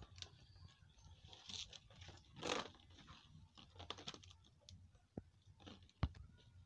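Faint crinkling and crackling of a plastic mat being handled and pressed, with scattered small clicks, a short rustle about two and a half seconds in and a sharper knock near the end.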